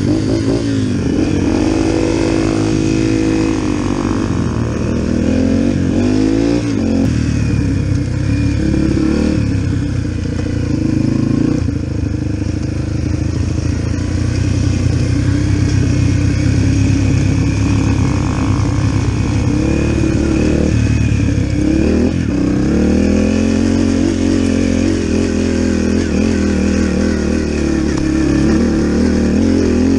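Small four-stroke single-cylinder engine of a Yamaha TT-R125 dirt bike running under way. Its pitch rises and falls again and again as the throttle is opened and closed.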